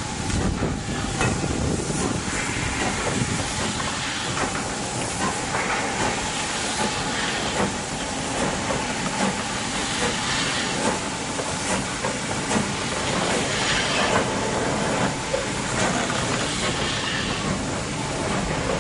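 BR Standard Class 4MT 2-6-0 steam locomotive No. 76079 rolling slowly past, with steam hissing and scattered clanks from the running gear and wheels on the track.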